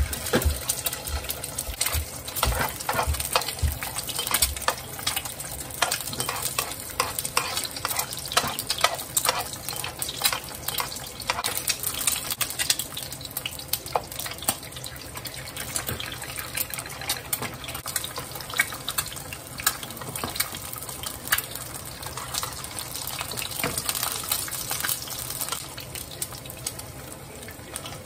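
Eggs frying in hot oil in a non-stick frying pan: a steady sizzle with many small crackles and pops of spitting oil throughout.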